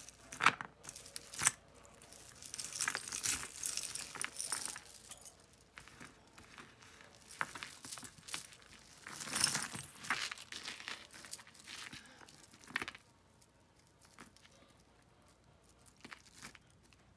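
Costume jewelry being handled: metal chains and pieces clinking and jangling in irregular bursts, with a couple of sharp clicks in the first two seconds, growing quieter in the last few seconds.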